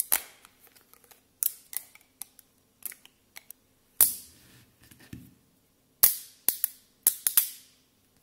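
10 mm neodymium magnet balls snapping together: about a dozen sharp metallic clicks and clacks at irregular intervals, some coming in quick pairs or triplets, as clusters of balls are snapped onto a growing ball-shaped sculpture.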